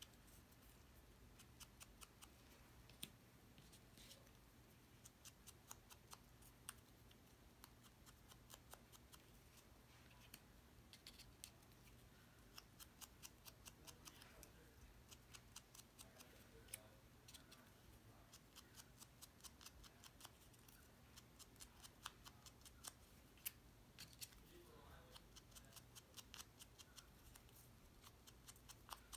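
Small ink pad dabbed and tapped along the edges of cardstock leaves, inking them: faint, rapid light clicks and taps.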